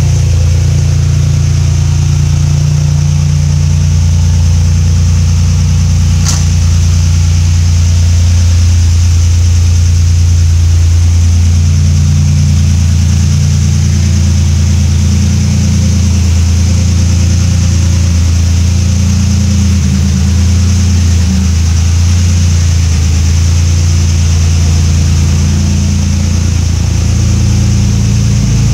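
Car engine idling steadily while it warms up after a cold start.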